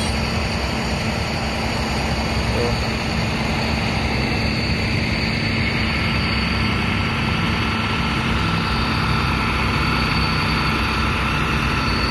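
Tow truck's engine idling, a steady hum that holds level throughout.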